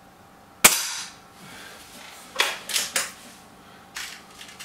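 BSA Lightning SE air rifle firing a single shot: a sharp crack with a short ringing tail. About two seconds later comes a quick run of three sharp clicks, then a few fainter ones.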